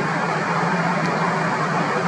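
Steady engine drone with a low hum.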